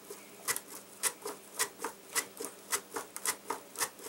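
A peeled banana being sliced on a mandoline slicer: each push across the blade gives a sharp scraping clack, in a steady rhythm of about two strokes a second.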